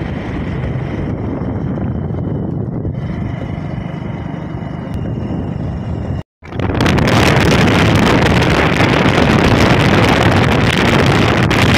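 Steady running noise of a moving road vehicle with wind rushing over the microphone. It drops out for a moment about six seconds in, and after that the wind rush is louder and hissier.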